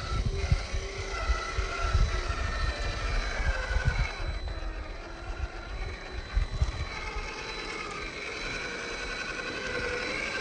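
Electric motor and gears of a Traxxas TRX-4 Sport RC crawler whining, the pitch wavering as it crawls over rocks. Low rumbling runs underneath, heavier in the first half.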